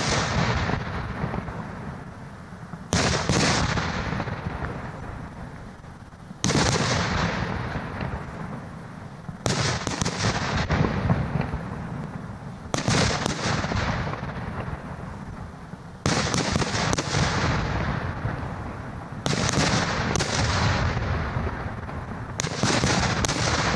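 Aerial firework shells bursting in a steady sequence. A cluster of sharp bangs comes about every three seconds, eight times, and each cluster dies away slowly.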